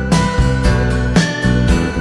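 Background music led by guitar, with plucked and strummed notes over a steady bass.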